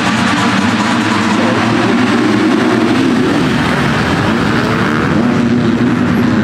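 Several motocross bike engines revving hard together, their pitch rising and falling as they race past.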